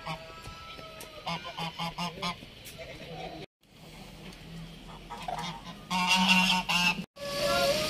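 Geese honking: four short honks in quick succession, then a louder run of repeated honks near the end.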